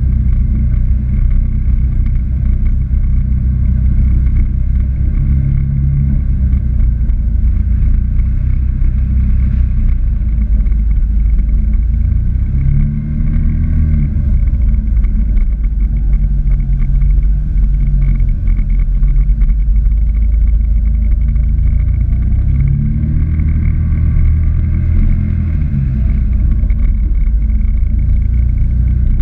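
Can-Am Maverick X3 side-by-side's turbocharged three-cylinder engine running at easy trail speed, its revs rising and falling a couple of times, about halfway through and again near the end, over a steady low rumble.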